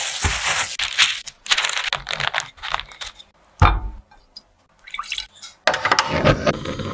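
Close-miked kitchen handling sounds: dough scraped and tipped from a clear plastic tub onto the work surface, with light clicks and scuffs. A single sharp knock comes about three and a half seconds in. Near the end, milk is poured into a frying pan over a block of butter with a steady splashing pour.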